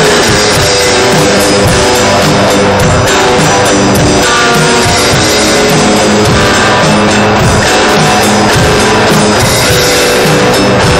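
Extreme metal played in a rehearsal room: guitar over drums, harshly distorted because the recording input was driven into overload rather than through any effects pedal. The music is loud and unbroken.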